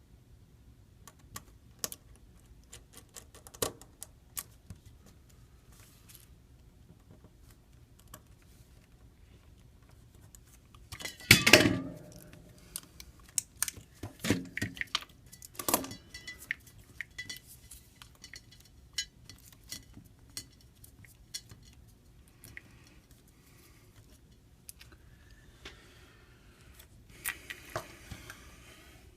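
Small repair tools clicking and clinking against a phone's parts: scattered light metallic clicks, with a louder burst of clatter about eleven seconds in.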